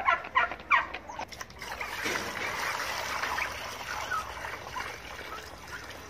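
Young domestic turkey calling, several quick calls in the first second, followed by a few seconds of steady noise around the drinker.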